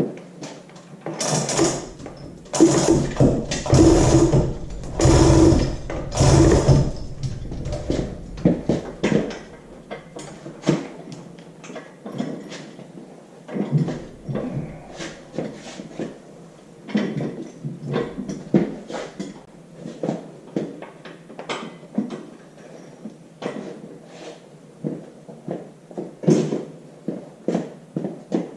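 Metal tools and hardware at work on an engine stand's mounting: several loud rattling bursts in the first seven seconds, then irregular metallic clicks and clinks.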